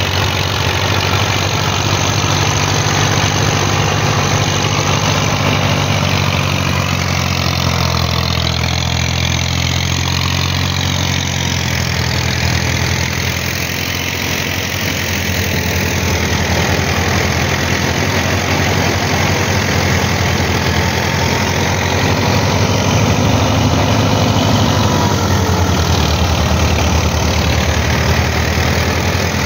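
Massey Ferguson 240 tractor's three-cylinder diesel engine running steadily under load, driving a wheat thresher through its PTO shaft, with the thresher's steady rushing noise over it.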